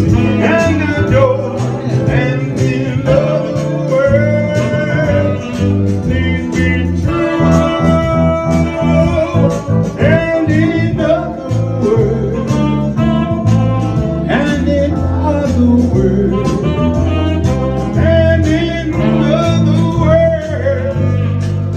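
Live band playing a song with a lead singer over a steady drum beat and a stepping bass line.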